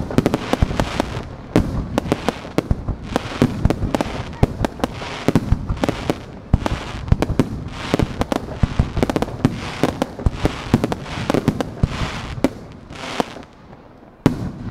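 Rapid-fire fireworks barrage (starmine): a dense string of launch reports and shell bursts, with crackling hiss swelling every second or two. It thins out and quietens near the end, then one more sharp bang comes just before it ends.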